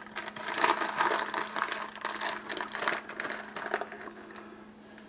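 Plastic pepperoni package crinkling and rustling as it is handled and opened and slices are pulled out, dying away about four seconds in.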